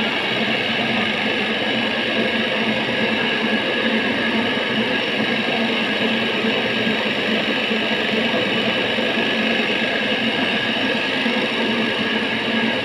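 A small 1-ton-per-hour cattle-feed plant running: its machinery makes a loud, steady mechanical noise that holds even throughout.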